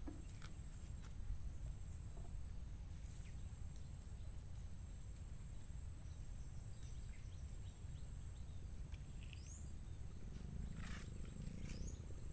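Steady high-pitched insect drone from the mangroves, with a few short bird chirps near the end, over a low steady rumble.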